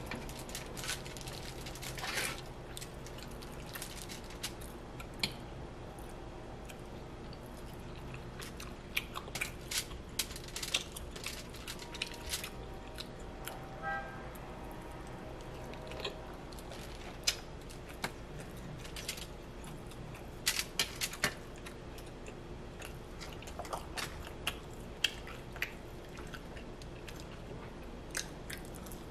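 A person chewing and eating close to the microphone, with scattered short, sharp mouth clicks and smacks over a steady low hum.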